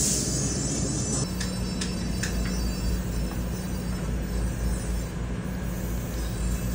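Dental lab suction unit running with a steady low hum and rumble, a steady low tone setting in about a second in, with a few light clicks soon after.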